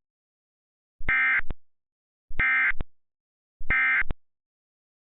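EAS SAME end-of-message data bursts: three short, identical, buzzy digital chirps about 1.3 s apart, marking the end of the alert.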